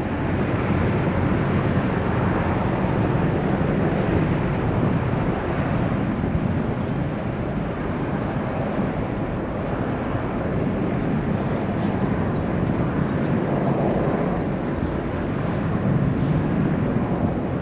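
Airbus A350 jet airliner's Rolls-Royce Trent XWB engines running at high power as it rolls along the runway, a loud, steady jet noise throughout.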